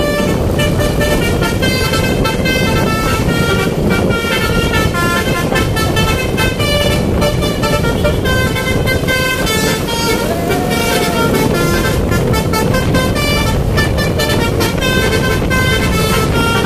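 Basuri 'telolet' musical bus horn playing a fast melody of short stepped notes, over a loud, steady background rumble.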